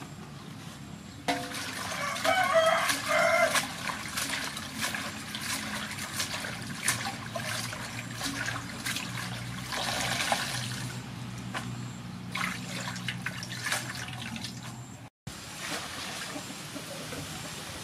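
Water splashing and sloshing in a large aluminium basin as hands swish and rinse leafy greens, in irregular bursts.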